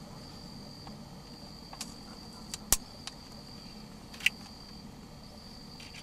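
Night ambience: a steady high insect trill over a low hum, broken by a few short sharp clicks, the loudest about halfway through and another about a second and a half later.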